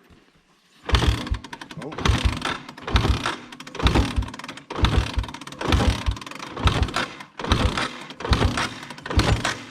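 Honda Big Red's engine being pull-started over and over, about ten recoil pulls roughly a second apart, each one turning the engine over without it catching: a hard start.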